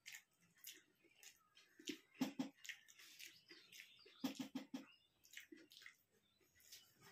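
Quiet eating sounds: fingers working rice against a stainless-steel plate, with chewing and scattered small clicks. There are two short runs of quick taps, about two seconds in and again about four seconds in.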